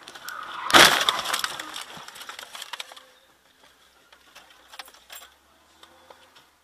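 Car collision heard from inside the dashcam car: a loud crash, followed by about two seconds of rattling and clattering debris that dies away into scattered faint clicks.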